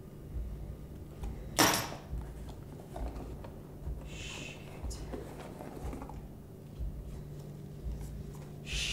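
Cardboard parcel box being opened by hand: one sharp tearing sound about one and a half seconds in, then a brief rustle a few seconds later, over a low steady hum.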